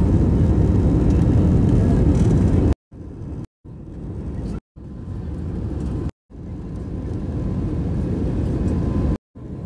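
Airbus A320 jet engines and airflow heard from inside the cabin during the climb after takeoff: a steady, loud low rumble. About three seconds in it cuts to dead silence several times in quick succession, each time returning quieter and swelling back up.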